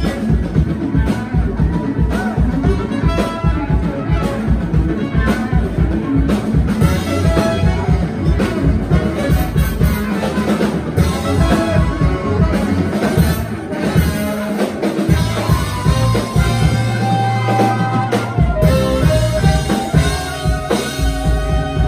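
A live band playing with drum kit, electric bass, electric guitars, keyboard, trumpet and saxophone. About two-thirds of the way through, the drum beat drops out for a few seconds under a held low note, then comes back in.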